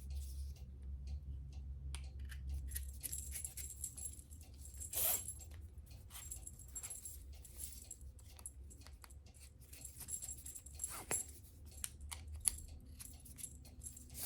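Handling of a dog e-collar: irregular small clicks and light metal jingling from the collar's buckle and rings and the plastic receiver as the strap is threaded through the receiver, with a sharper click about five seconds in.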